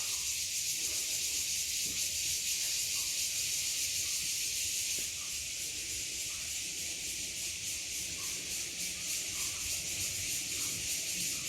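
A steady high-pitched hiss that does not change.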